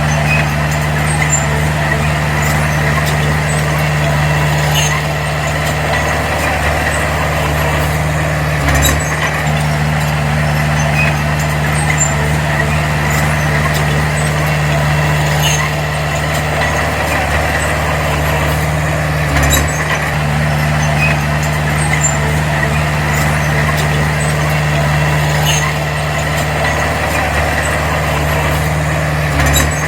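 Diesel engine of a Komatsu D20P crawler bulldozer running steadily under work, with faint metallic ticks every few seconds and a short low thump about every ten seconds.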